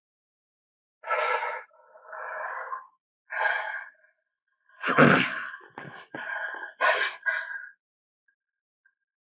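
Animated hyena character voice effects: a run of six short, separate vocal bursts with gaps between them, the loudest about five seconds in.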